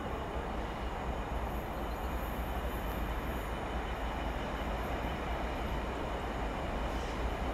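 Freight train running past on the line: a steady rumble of wheels and wagons on the rails, with a faint high squeal from the wheels.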